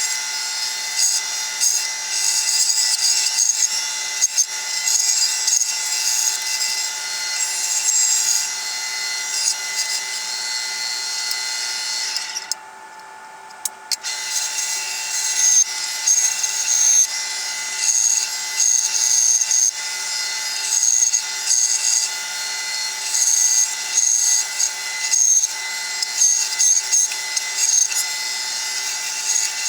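Bandsaw running with a steady hum while its blade cuts wood, the cutting noise swelling and easing as the workpiece is fed through. The sound drops away abruptly for a second or two near the middle.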